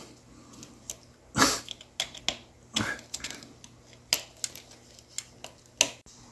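White plastic multi-pin wiring connectors being handled and pushed together among the bike's wiring: scattered small plastic clicks and rustling, with a few short noisy bursts, two of them louder, about a second and a half in and near the middle.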